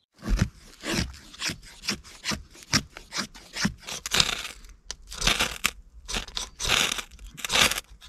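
A ferro rod (fire steel) being scraped with a striker, repeated rasping strokes about two a second, throwing sparks onto wood-shaving tinder to light a fire.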